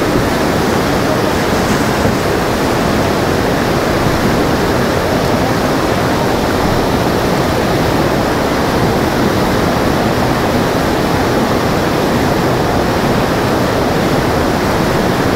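Whitewater rapids of a fast, boulder-strewn river, rushing loud and steady without a break.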